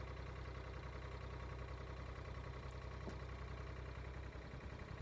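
Front loader's engine running steadily with a low, even hum.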